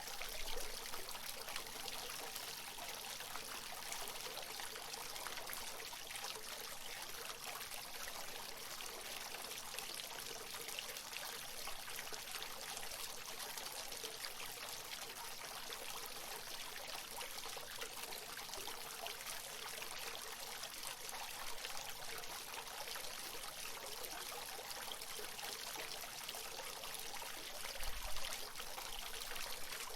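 Water of a natural fountain pouring and splashing steadily. A brief low rumble comes near the end.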